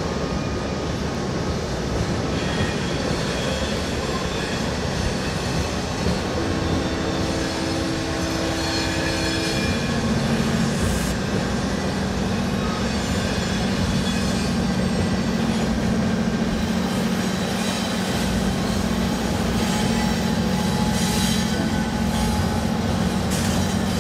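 Freight train rolling by, with steady wheel and car rumble and some faint wheel squeal. A steady low diesel engine hum from the locomotives comes in about ten seconds in.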